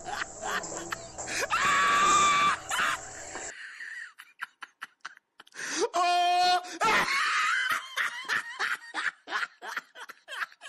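People laughing in quick bursts, with two loud, high-pitched held screams: one about a second and a half in, and another about six seconds in.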